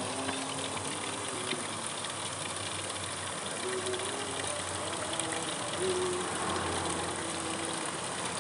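A thin stream of water pouring from a spout in a stone wall and splashing over a child's hands being rinsed under it: a steady hiss.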